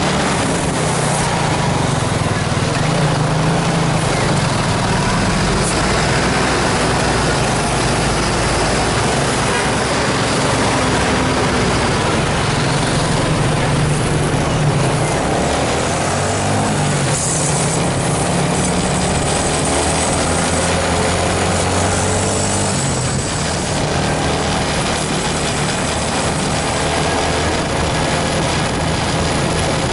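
Bus diesel engine running steadily, with a constant hiss of road and tyre noise.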